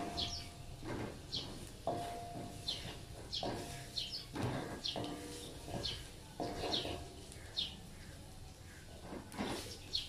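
A spatula scraping and knocking against a wok while stir-frying garlic and onion in oil, in irregular strokes about once a second, the wok ringing briefly after some strokes. A bird chirps repeatedly in the background, short high notes.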